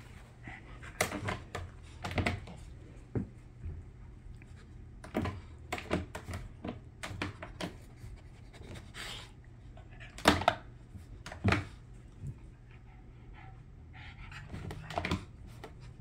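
Boston terrier panting as it noses around plastic laundry baskets on a carpet, with scattered short knocks and scuffs. The two loudest knocks come about ten and eleven and a half seconds in.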